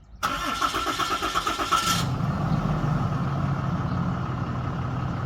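A vehicle engine cranking for about two seconds with a high whine, then catching and settling into a steady idle.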